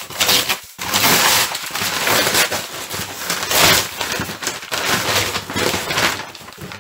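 Brown paper wrapping being torn and pulled off a cardboard box by hand: a run of irregular rustling, ripping bursts that dies down near the end.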